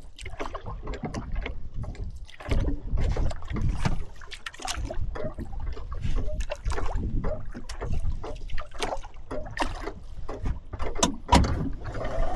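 Water slapping and splashing against the side of a fishing boat, with irregular knocks and splashes.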